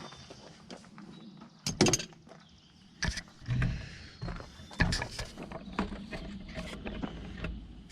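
A few sharp clicks and knocks of the GMC Sierra extended cab's rear door hardware being handled, the loudest about two seconds in, over a faint low background.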